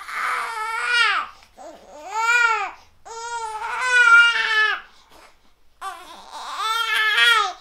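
Two-month-old baby crying in four long, high wails with short breaths between.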